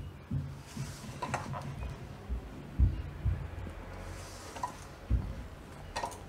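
A hand mixing and rubbing a crumbly flour, semolina and oil mixture in a stainless steel bowl, before water is added, giving irregular soft thumps and a few light clicks against the bowl.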